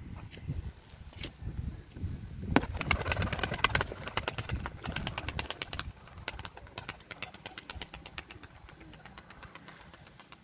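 A tumbler pigeon taking off, its wings beating in a fast, even run of flaps. The flapping starts about two and a half seconds in and fades as the bird climbs away.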